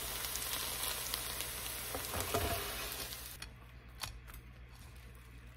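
Bean sprout pancake frying in a pan with a dense, steady sizzle that cuts off about three and a half seconds in. A few faint clicks follow.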